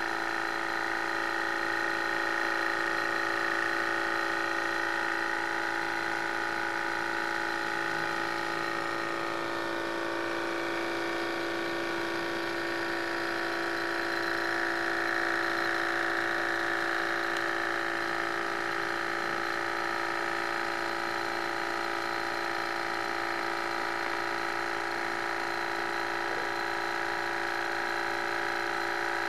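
Small model Stirling engine running at speed: a steady mechanical whir from its spinning flywheels, cranks and pistons.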